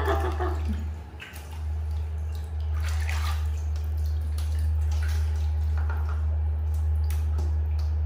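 Water splashing and dripping in a plastic bath basin as a baby macaque stirs and climbs out, in a few short splashes, over a steady low hum. A brief falling tone sounds at the very start.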